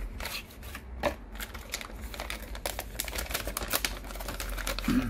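A cardboard box being opened and a replacement phone screen-and-housing slid out of its plastic wrap: a run of irregular clicks, scrapes and crinkly rustles.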